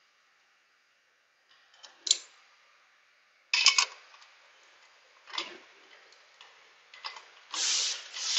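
Socket ratchet clicking in several short bursts as the cylinder head bolts of a Honda GX390 are snugged down by hand, just barely tight ahead of torquing. The first couple of seconds are nearly quiet.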